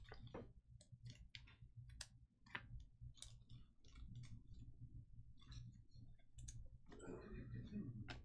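Faint, irregular clicks and taps, a few a second, over a steady low hum, with a brief rustle near the end.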